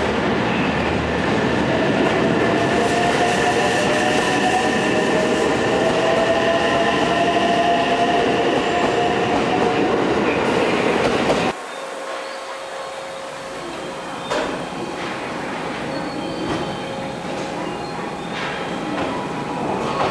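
JR West 227 series 'Red Wing' electric train pulling out of the platform, its traction motors whining slowly upward in pitch as it accelerates over the running noise of the wheels on the rails. After about eleven seconds the sound cuts off suddenly to quieter station ambience with a steady hum.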